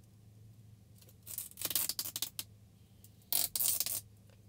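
Thin protective plastic film being peeled off the glossy plastic face of a control bar, crackling in short stretches, with the loudest crackle near the end.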